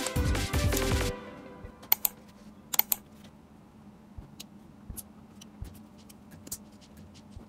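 Background music that stops about a second in, followed by scattered sharp clicks of LEGO Technic plastic pieces being handled and snapped together, a few close pairs among single clicks.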